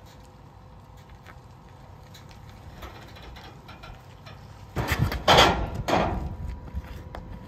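A car trailer's perforated aluminium loading ramp being pulled out of its slot. It slides out with a loud metal scraping and rattling that begins about two-thirds of the way in, after only faint background.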